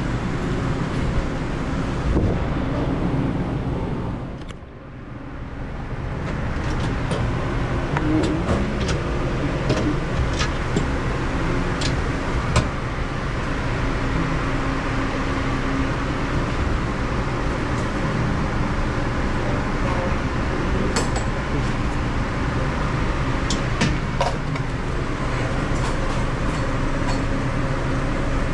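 Steady machinery hum and rumble of a busy commercial kitchen, with scattered light clicks and clatter. The sound briefly fades out and back about four seconds in.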